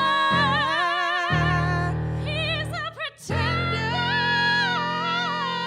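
Christian song closing: a singer holds long notes with wide vibrato over sustained low accompaniment chords. The music breaks off briefly about three seconds in, then the held notes resume.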